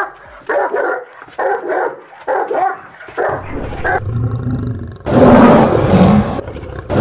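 A Presa Canario barking four times, about one bark a second. From about five seconds in comes a loud lion roar.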